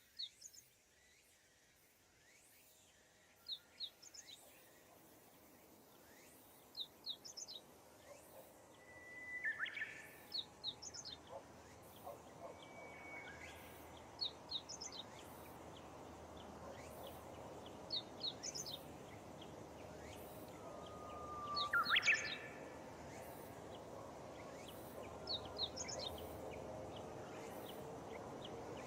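A bird repeating a short phrase of two or three high chirps about every three and a half seconds, with a few upward-sweeping calls, the loudest about 22 seconds in. Beneath it a low, even noise slowly grows louder.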